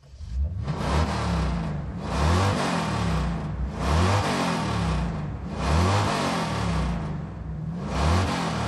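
Car engine revving again and again, each rev rising and falling in pitch, about every one and a half seconds.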